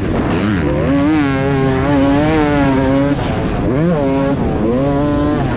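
Dirt bike engine running hard under throttle. Its pitch climbs sharply, holds, drops a little after three seconds and climbs again about a second later, as when the rider shifts and gets back on the gas. There is wind rush throughout.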